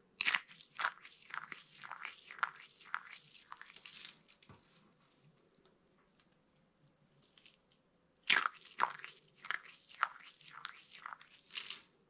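Dry soap curls crushed between the fingers: a rapid run of crisp crunches and crackles for about four seconds, a pause, then a second run starting about eight seconds in.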